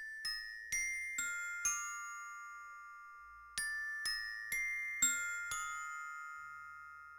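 Music: a slow melody of bell-like struck notes, glockenspiel-like, each note ringing on as it fades. The notes come in groups of four or five with a pause of about two seconds between groups.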